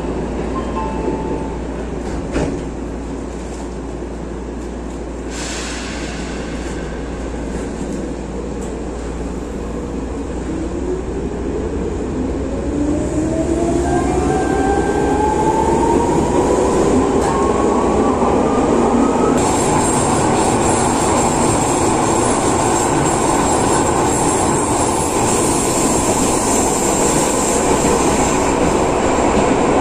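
Ex-Tokyu 8500 series electric train starting off, with a short knock a couple of seconds in. Its traction motors then whine in a rising pitch as it accelerates. About two-thirds of the way through, the running noise suddenly grows louder and hissier.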